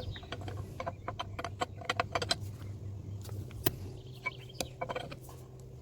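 Light metallic clicks and clinks of a spanner and loosened wheel bolts being handled, in quick clusters in the first half and a few single taps later, over a steady low hum.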